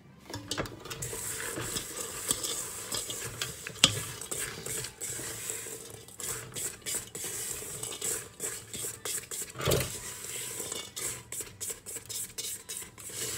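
Whole pecans coated in egg white and cinnamon sugar being stirred with a spatula in a large stainless steel pot. It is a continuous, irregular run of small clicks and scrapes of nuts and utensil against the metal, with a sharp clack a little under four seconds in and a heavier knock near ten seconds.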